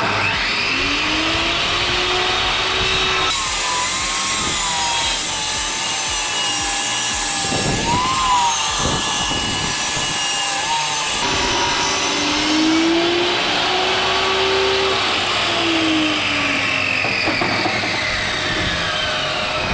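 Table saw ripping a long timber plank into a wedge-shaped furring strip: loud steady cutting noise with a whine whose pitch sags and recovers as the wood is fed through the blade.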